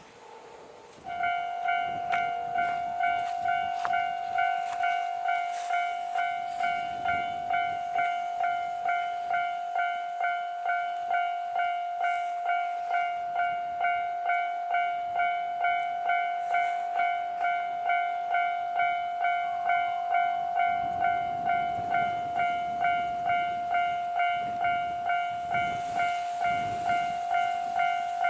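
Japanese railway level-crossing warning bell ringing in a steady rhythm of a little under two strokes a second, one fixed tone, starting about a second in: the crossing signal for an approaching train. A low rumble comes in during the last several seconds.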